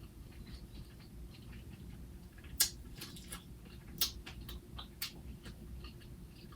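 Chewing a sandwich on toasted sesame bread: crisp crunches and wet mouth clicks, a few sharper cracks a little over two and a half seconds in and at four and five seconds.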